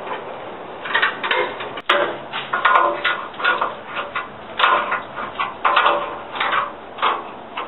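Irregular scraping and rustling of hands and metal hardware as a bolt is worked into an overhead fitting in a tank turret, with a sharp click about two seconds in.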